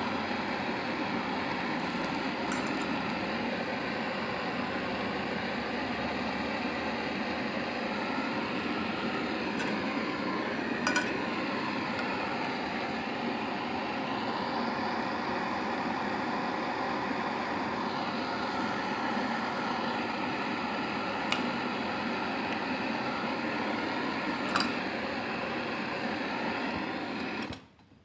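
Handheld gas flame gun burning with a steady hiss and a few faint ticks, cut off suddenly near the end.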